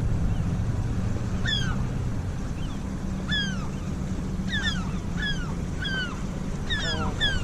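Seagulls calling: a run of short cries, each falling in pitch, about one or two a second. Under them runs the steady low hum of the boat's motor.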